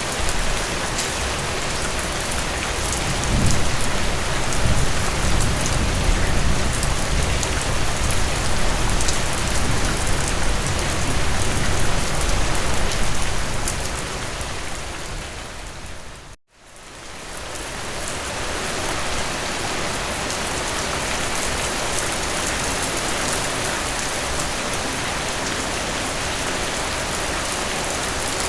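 Steady rain falling, with a long low rumble of thunder from about three seconds in that slowly dies away. A little past halfway the rain fades out for an instant and fades back in.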